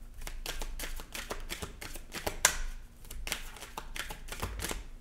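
A deck of oracle cards being shuffled by hand: a quick, irregular run of short card snaps and slaps.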